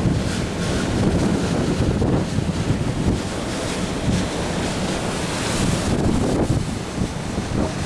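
Wind buffeting the camera microphone on the open deck of a ship under way, a dense low rumble that rises and falls in gusts; the apparent wind over the deck is about 32 miles an hour.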